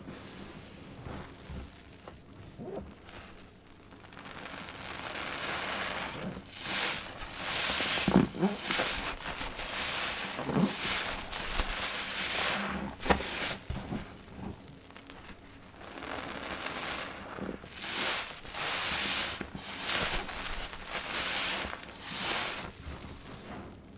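A wet blue sponge squeezed and kneaded by hand in a basin of soapy water and thick foam: repeated squelching and sloshing in bouts, with quieter stretches between. It is quieter over the first few seconds.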